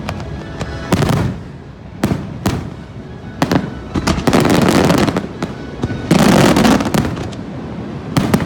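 Fireworks show: sharp bangs about a second apart, then a dense run of crackling bursts around four seconds in and a louder, longer burst about six seconds in, with the show's music playing underneath.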